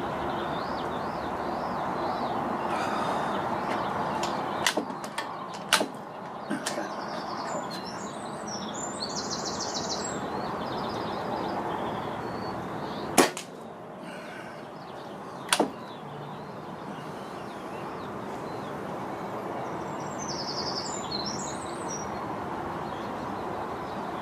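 Falcon Prairie Hunter PCP air rifle: a few sharp clicks of handling, then a single loud shot about halfway through, and another sharp mechanical sound about two seconds later. Steady wind noise throughout, with birds chirping now and then.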